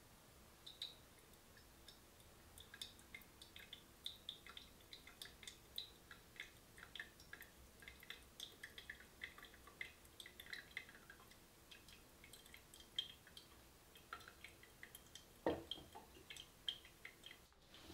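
Faint dripping and small ticking of a thin stream of hot water from a gooseneck kettle falling onto the coffee bed in a ceramic pour-over dripper. About fifteen seconds in comes a louder knock as the stainless kettle is set down on the cooktop.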